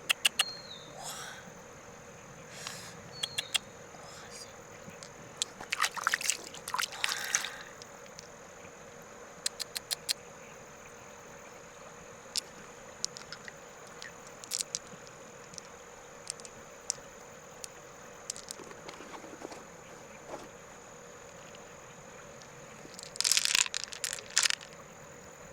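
Clusters of sharp clicks and two short flurries of scraping noise, over a steady high-pitched drone.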